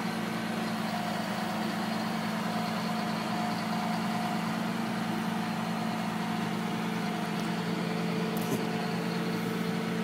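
Boom truck's engine running steadily at idle while its crane lifts a load. A faint click comes about eight and a half seconds in.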